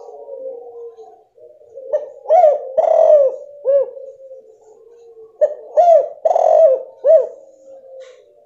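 Female spotted dove cooing: two short phrases of arched, rising-and-falling coos, the first about two seconds in and the second about halfway through. This is the female call used as a lure to set silent male spotted doves cooing.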